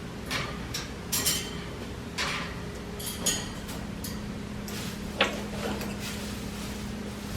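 Scattered clinks and knocks of hard toys being shaken and dropped by a young African grey parrot, about half a dozen in all, the sharpest a little after five seconds in. A steady low hum runs underneath.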